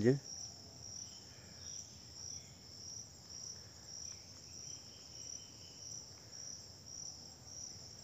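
Forest insects chirring in a high, steady, evenly pulsing trill.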